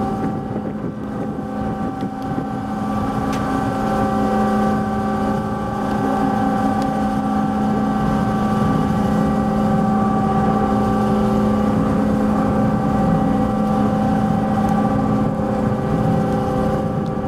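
The ferry MV Queen of Cumberland's engines drone steadily under way as the ship pulls away from the berth, with a strong low hum and several higher steady tones. The sound grows somewhat louder a few seconds in.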